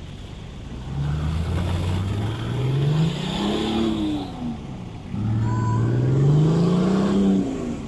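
Nissan Patrol's 2.8-litre straight-six turbo-diesel revving hard twice, the pitch climbing and then dropping off each time. The 4x4 on 35-inch tyres is badly stuck in a muddy water hole, its wheels spinning and churning mud and water.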